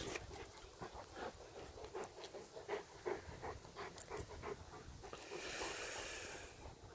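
Dog panting faintly in short, irregular breaths, with a soft hiss for about a second near the end.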